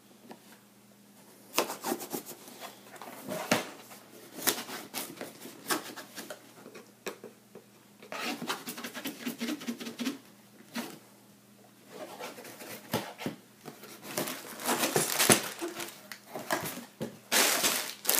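Cardboard packaging and plastic parts bags being handled and opened: scattered clicks, taps and rustling, with louder crinkling over the last few seconds.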